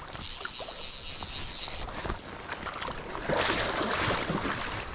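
A hooked smallmouth bass splashing and thrashing at the water's surface, a burst of splashing from about three seconds in that lasts over a second. Before it, a high, slightly wavering whine for about two seconds.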